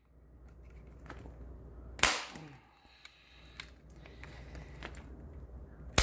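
Corded electric staple gun firing staples through vinyl into half-inch plywood: one sharp snap about two seconds in, and another at the very end.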